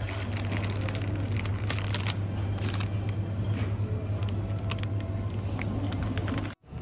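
Steady low hum of a supermarket's refrigerated display cases, with crinkling and clicking of plastic food packs being handled.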